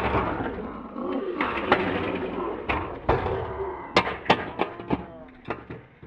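Stunt scooter slamming down and clattering across concrete after a bail. A loud bang opens it, followed by a string of sharp knocks and clicks that thin out near the end.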